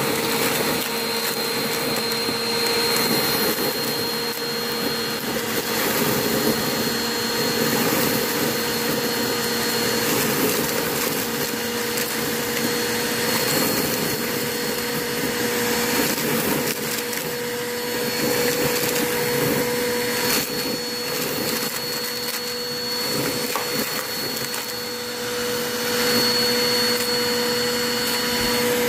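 Upright bagless vacuum cleaner running steadily with a constant motor whine while sucking up a pile of paper and foil confetti from a rug, with scattered faint clicks and rattles of debris going up into the clear dust cup.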